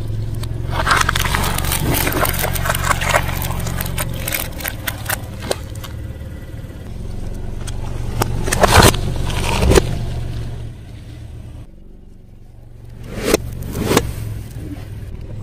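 Car tyre rolling slowly over small objects and crushing them, crackling and scraping against the concrete over the engine's steady idle, with a few loud cracks around the middle and again near the end.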